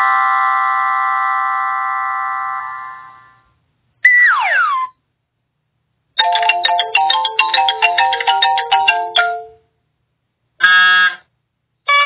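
A string of separate electronic sound effects with silence between them: a bright held chord fading away, a quick falling glide, a fast run of short notes lasting about three seconds, and two short tonal blips near the end.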